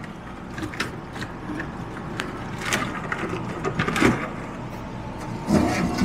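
Sheet-metal casing of a Dometic RV furnace scraping and knocking against its wooden compartment as it is twisted around by hand, a string of irregular clicks, rubs and thuds.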